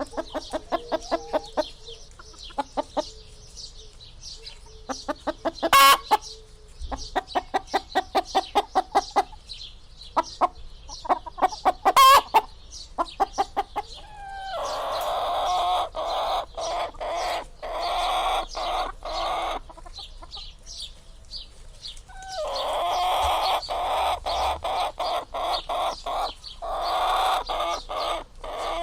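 Hens clucking in rapid trains of short clucks, with two loud squawks about six and twelve seconds in. From about halfway the calling turns into denser, continuous clucking and cackling.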